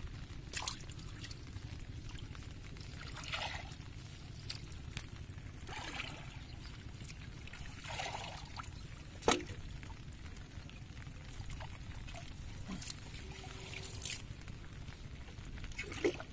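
Water splashing and trickling in short bursts as a fishing net is handled by hand in shallow water beside a small wooden boat, over a steady low rumble. A sharp knock about nine seconds in is the loudest sound.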